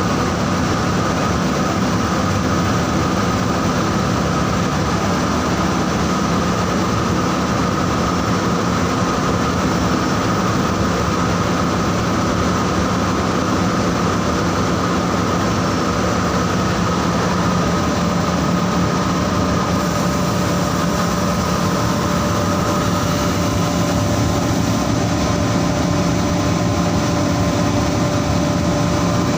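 Saurer JSC 330 carding machine running steadily: a loud, even mechanical drone with several steady humming tones. About two-thirds of the way through, a new, higher steady tone joins in.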